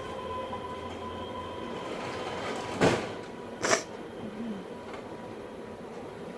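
Two short, sharp nose blows a little under a second apart, near the middle, over a steady background noise.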